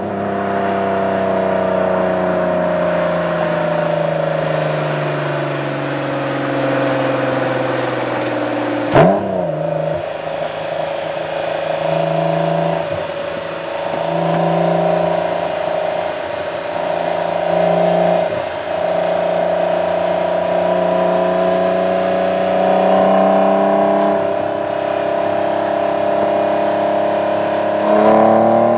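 Exhaust of a 1998 Acura NSX-T's 3.2-litre V6 through a GT lightweight aftermarket exhaust, heard close up at the tailpipes. The note falls slowly as the car slows, gives one quick sharp rev about nine seconds in, then holds steady at part throttle and climbs again near the end as the car accelerates.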